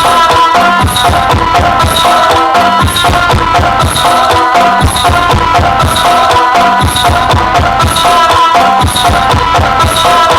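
Loud percussion-led folk music played through a large sound system, with quick, deep drum beats under steady, ringing high tones in a repeating pattern.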